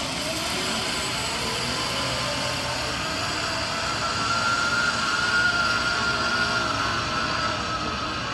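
Zip-line trolley pulley rolling along a steel cable: a steady whirring hiss with a faint whine that rises slightly about halfway in and eases off near the end.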